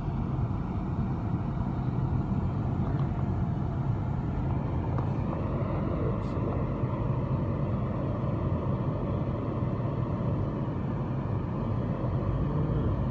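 Steady engine and road noise inside a moving car's cabin.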